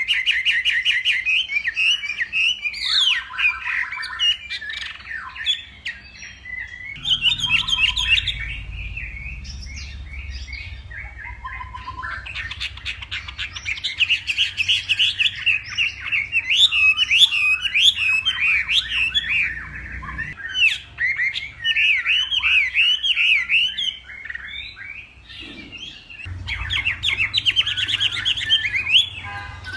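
Chinese hwamei singing a long, loud run of rapid, varied whistled phrases, pausing briefly about six seconds in and again near twenty-five seconds, with a low rumble underneath in stretches.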